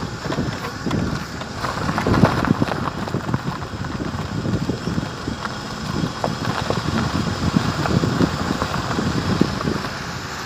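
Wind buffeting the microphone of a vehicle moving along a gravel dirt road, a gusty rumble that swells and drops unevenly, with the vehicle's running noise underneath.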